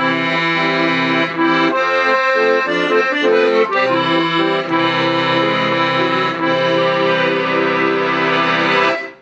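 Castelfisa Ricanti accordion being played: a melody in held reed notes over bass notes and chords, stopping about nine seconds in.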